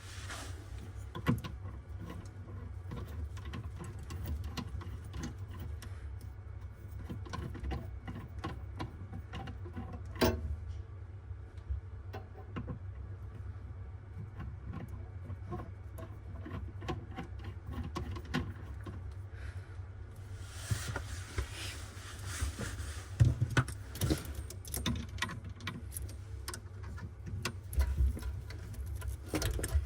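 Scattered small clicks and metallic clinks of tools and parts being handled over a steady low hum, with a stretch of hiss and denser clatter about twenty seconds in.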